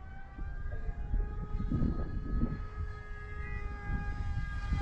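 Electric motor and propeller of a radio-controlled 3D-printed F-35C, running on an E-flite Ultrix 600 power system, whining in the air with a steady pitch that shifts a little with throttle. Wind buffets the microphone underneath.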